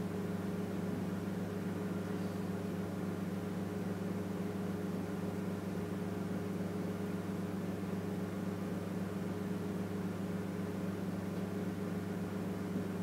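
A steady low hum made of a few even tones, unchanging throughout, over a faint hiss.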